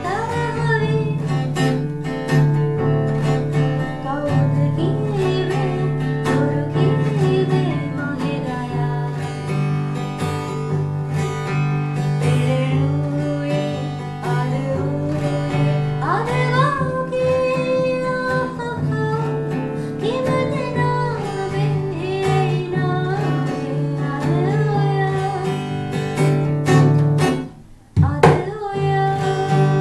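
A woman singing while strumming an acoustic guitar, with a brief pause about two seconds before the end before voice and guitar come back in.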